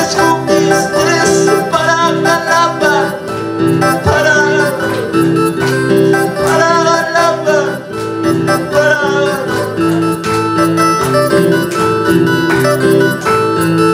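Electronic keyboard playing upbeat worship music with an automatic rhythm accompaniment and held chords, amplified, while a man sings phrases into a microphone.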